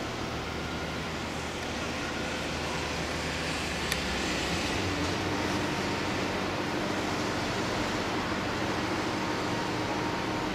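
Steady hum and hiss of a standing JR West 321 series electric train's onboard equipment and air conditioning, with a single sharp click about four seconds in.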